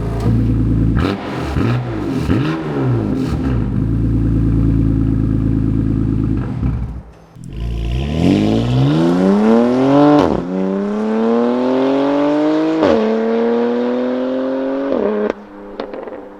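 BMW S55 twin-turbo inline-six breathing through a titanium equal-length, single mid-pipe valved exhaust. It runs with its pitch swelling and falling a few times, then about 8 seconds in it accelerates hard, climbing through the revs with two quick upshifts, and drops off sharply as the throttle is lifted near the end.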